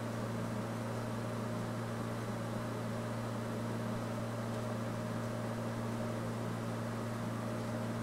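Steady low hum with an even hiss over it and nothing else: background room or equipment noise.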